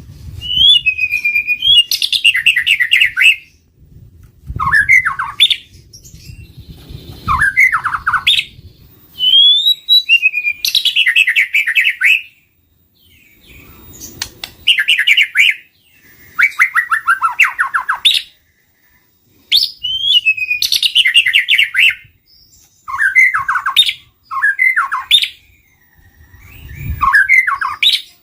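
White-rumped shama calling in a string of short phrases, one every two to three seconds, each a rising whistled note running into a fast, rattling chatter.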